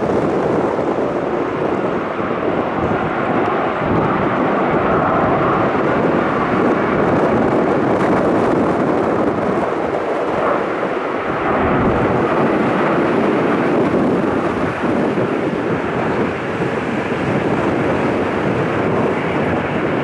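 Jet airliner engine noise, a loud, steady rushing roar.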